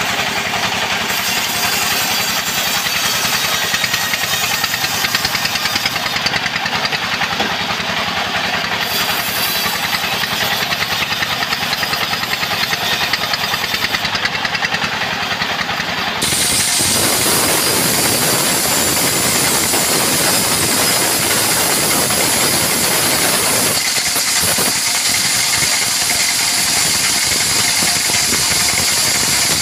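Band sawmill running with a rapid steady machine beat; a little over halfway through the blade enters the mahogany and a louder, hissing sawing noise takes over.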